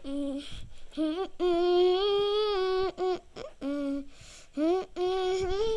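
A high voice humming a string of wordless notes. The longest is held for about a second and a half near the middle, and shorter phrases come before and after it.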